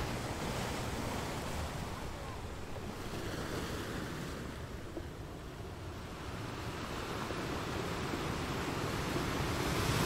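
Ocean surf: waves breaking and washing in on a beach, a steady rushing noise that dips slightly midway and grows louder toward the end.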